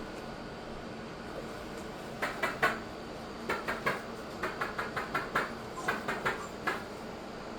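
Light clicks and rattles in quick clusters, from about two seconds in until near the end: a small pet moving a toy about.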